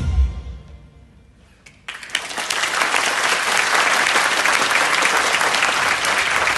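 Recorded pop music dies away within the first second. After a short quiet gap, an audience starts applauding about two seconds in and keeps clapping steadily.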